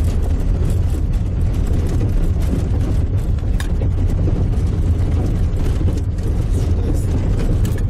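Inside the cabin of a car driving fast on a dirt road: a steady low rumble of engine and tyres, with scattered light rattles and knocks from the car jolting over the rough track.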